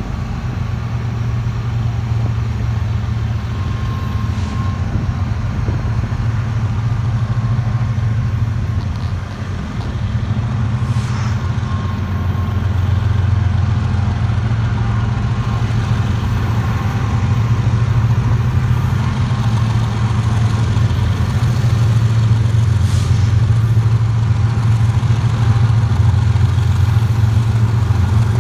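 Diesel-electric freight locomotives, a GE ES44DC leading with three more units behind, running with a steady low rumble that grows gradually louder as they approach.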